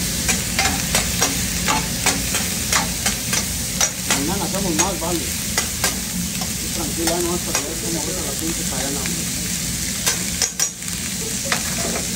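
Steak sizzling on a steel flat-top griddle while two metal spatulas chop it. The steel blades strike the griddle in sharp clacks, about three a second for the first few seconds and more scattered later, over a low steady hum.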